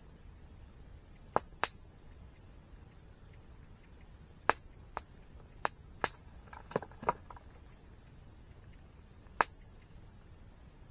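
Campfire wood crackling: about nine sharp, separate pops, some in quick pairs, over a faint steady high-pitched hiss and low background rumble.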